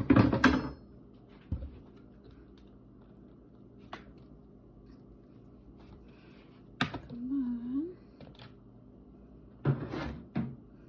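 Kitchen items being handled: a few clatters and knocks, loudest at the very start and again near the end, with a short hummed voice about seven seconds in.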